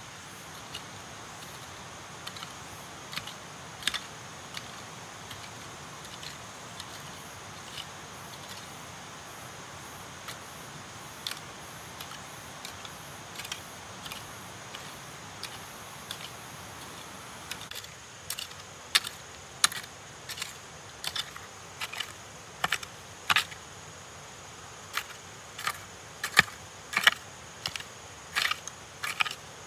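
Irregular sharp clicks and snaps over a steady faint hiss. They are sparse at first and come quicker and louder past the middle.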